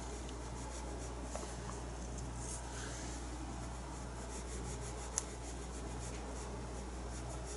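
Paintbrush rubbing acrylic paint onto the painting surface in short repeated strokes, faint over a steady low hum, with one sharp click about five seconds in.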